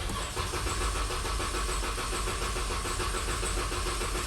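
2013 Jeep Grand Cherokee's 3.6-litre Pentastar V6 cranking steadily on the starter without firing, its fuel pump relay pulled. It is a dry crank to push oil through freshly installed camshafts, lifters and rocker arms before the first start. The cranking begins abruptly.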